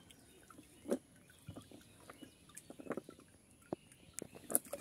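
Scattered soft knocks and rustles as a cast net and its rope are gathered up by hand on a platform of wooden logs.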